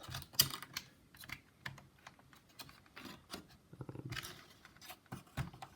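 Irregular small plastic clicks and light scrapes from a vintage laptop's plastic case and a hand tool, as the clips holding the touchpad upper assembly are worked loose. There is a sharp click about half a second in.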